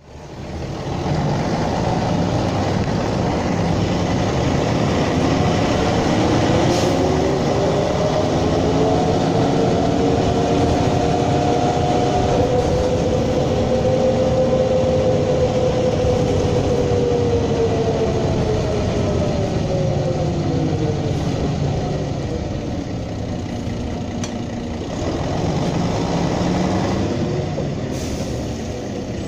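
Ride inside a 1985 Mercedes-Benz O305 city bus, its OM407 six-cylinder diesel running under way. The engine note rises steadily for about ten seconds as the bus pulls away, then falls as it slows, and rises and falls once more near the end.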